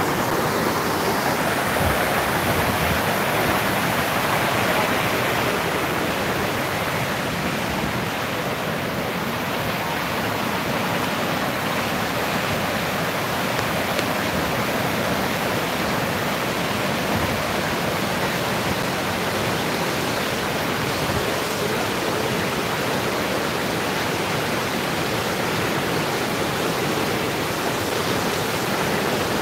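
Mountain river rushing over rocks in whitewater rapids: a steady, unbroken rush of water.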